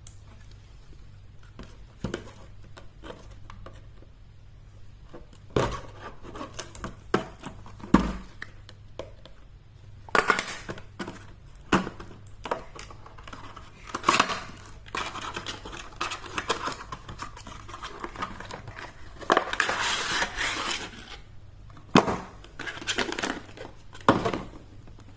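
Cardboard box and clear plastic packaging being handled and opened: scattered taps, scrapes and crinkling, with a longer stretch of plastic rustling about two-thirds of the way through.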